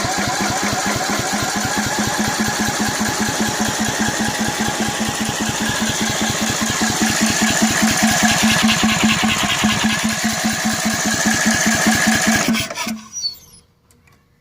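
Electric starter cranking a 720cc Cub Cadet mower engine in a steady, fast rhythm for about thirteen seconds without it catching, then stopping near the end. It is a no-start: the engine turns over but won't fire, even though it has spark, fuel and a cleaned carburettor.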